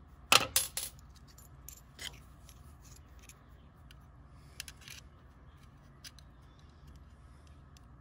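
Quick metallic clinks and clatters of small screws and metal receptacle parts on a steel tabletop, the loudest cluster of three about half a second in, then a few lighter clicks.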